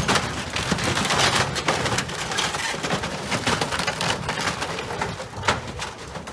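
Boat hull scraping and grinding on a concrete ramp: a continuous crackling noise made of many small clicks and scrapes.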